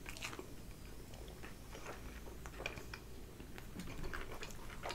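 A person chewing a mouthful of fried chicken close to the microphone, with faint, scattered small clicks and crackles.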